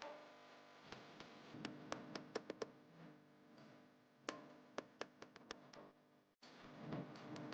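Raindrops striking a hard surface in faint, irregular ticks and taps, over a low steady hum. The sound cuts out briefly about six seconds in.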